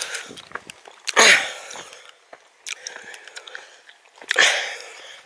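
Footsteps on a stony track, with two loud breathy bursts from the walker about three seconds apart.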